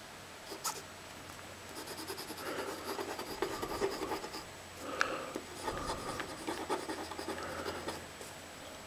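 A Parker Vector pen scratching across paper in quick scribbling and writing strokes, in two runs of a few seconds each, with a couple of sharp taps. The pen is not writing properly.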